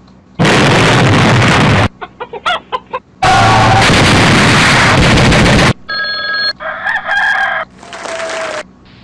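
A run of separate sound-effect clips cut back to back: a loud burst of noise lasting about a second and a half, a few short clicks and blips, a longer loud burst of noise, then several shorter pitched calls or tones near the end.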